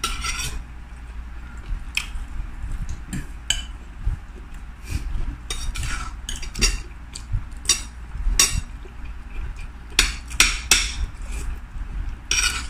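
Spoons and forks clinking and scraping against a plate and a plastic bowl while eating, in short irregular clicks.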